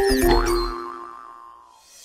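Short musical logo sting for a kids' channel, with cartoon sound effects. A low hit and a few quick whistle-like slides open it, then held notes ring out and fade away over about a second and a half.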